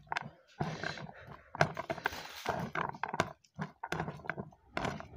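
Close-miked eating sounds: chewing and wet mouth noises, with fingers mixing rice and buffalo-meat curry on a plate, in a string of short irregular smacks and clicks.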